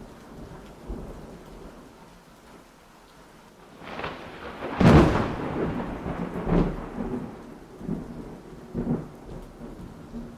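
Thunderstorm with steady rain. A loud thunderclap comes about five seconds in, after a short build, and further thunder follows twice.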